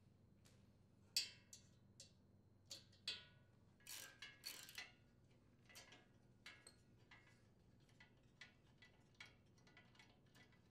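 Small metal clinks of a hand tool on the muffler's mounting bolts, the loudest a ringing clink about a second in, then a socket ratchet clicking evenly, two or three clicks a second, as the bolts are backed out.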